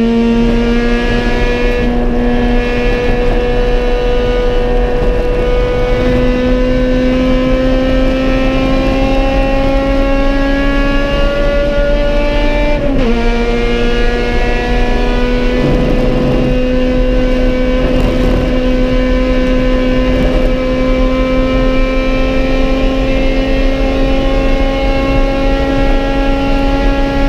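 Honda B18 four-cylinder engine of an EG Civic race car under full throttle, heard from inside the cabin, its pitch climbing steadily as the car gathers speed. About 13 seconds in the pitch drops sharply at an upshift, then climbs again.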